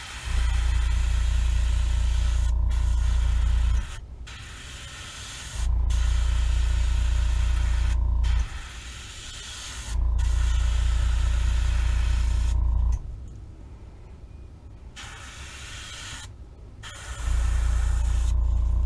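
Airbrush spraying paint in four steady bursts of a few seconds each, the compressed air rushing and hissing through the gun, with short pauses between them.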